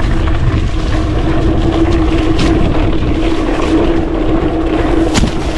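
Mountain bike ridden fast off-road: a continuous rush and rumble of tyres on the dirt track and wind, with a steady hum and the bike rattling over bumps. There is one sharp knock about five seconds in.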